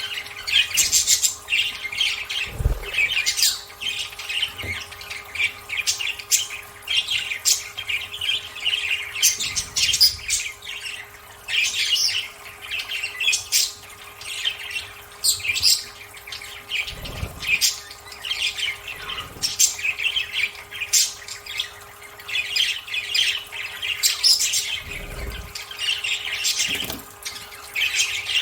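A group of budgerigars chattering and squawking continuously in quick, busy bursts, with a few low thumps.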